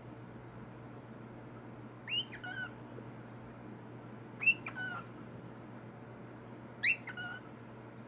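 Cockatiel whistling three short calls about two and a half seconds apart. Each call is a quick rising note followed by a lower one.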